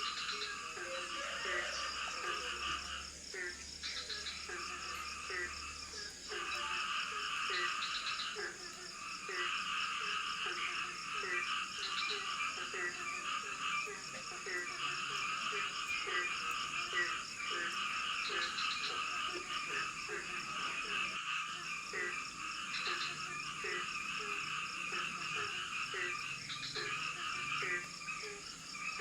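Frog chorus in tropical forest: a dense din of high, pulsing calls, with a lower croak repeating at a steady pace, over a steady high insect buzz.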